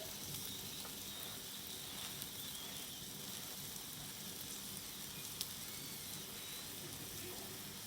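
Garlic scapes sizzling steadily on a thick steel griddle, with a faint pop about five seconds in.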